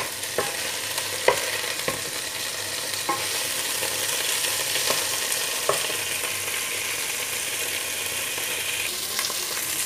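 Chicken pieces sizzling in hot oil in a pot as they brown, with a steady frying hiss. A few short knocks of a wooden spatula against the pot come in the first half as the pieces are turned.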